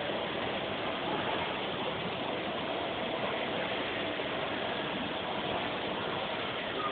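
Steady railway-station background noise: an even hiss with a faint mechanical hum.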